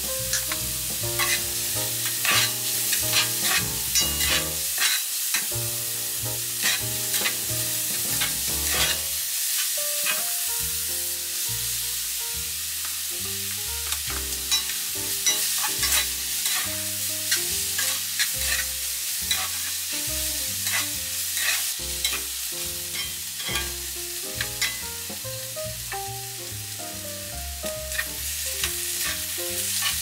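Diced vegetables and sausage sizzling in oil in a stainless steel frying pan, stirred and tossed with a plastic spatula that knocks and scrapes against the pan many times.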